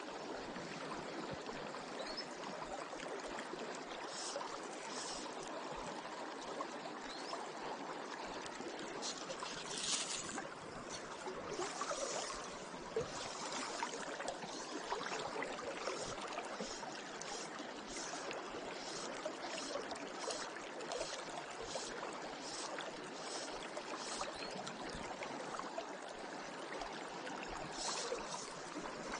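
River water flowing and rippling steadily around a wading angler, with a few brief hissing swishes, the strongest about ten seconds in and near the end.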